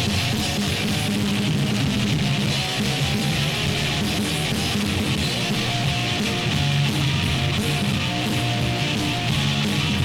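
Noise rock music: a dense, steady wall of distorted electric guitar with a thick low rumble beneath, unbroken and without pauses.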